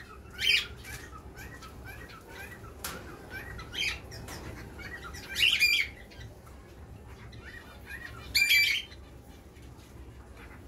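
A room of cage birds, parrots and finches, chirping continuously, with three loud calls rising above the chatter about half a second, five and a half seconds, and eight and a half seconds in.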